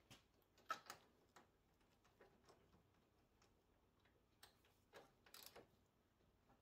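Near silence broken by a few faint clicks of a hand ratchet turning a spark plug in with a socket and extension: a pair about a second in and a short cluster about five seconds in.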